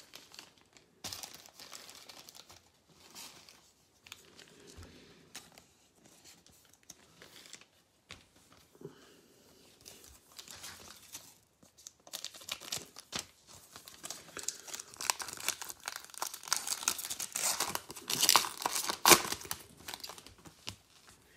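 Trading cards being handled and slid against each other, then a card pack's wrapper being torn open and crinkled. The crinkling grows denser and louder over the last third.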